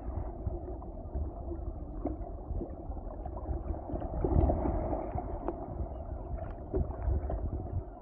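Muffled sea water sloshing and splashing, with small knocks, swelling louder about halfway through.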